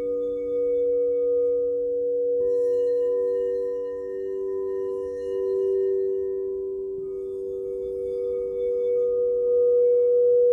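Several singing bowls ringing together in long, overlapping tones that swell and fade. Another bowl joins about two and a half seconds in.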